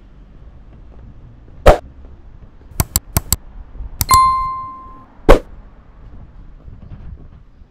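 Sharp close clicks and knocks: one knock, then four quick clicks about a second later, then a knock followed by a short ringing ding that fades over about a second, and a last knock.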